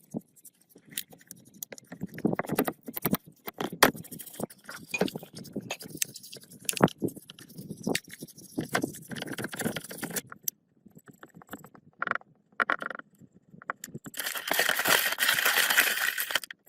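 Irregular metallic clinks, knocks and scraping of hand tools and metal parts being worked on a bench. Near the end comes a steady rasping hiss of about two and a half seconds.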